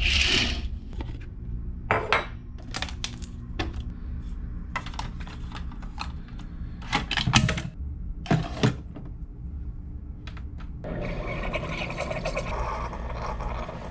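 A soft swish at the start, then a series of plastic clicks and knocks as a Keurig single-cup coffee maker is handled and loaded. From about eleven seconds in comes a steady hiss as the Keurig brews into a mug, over a low hum.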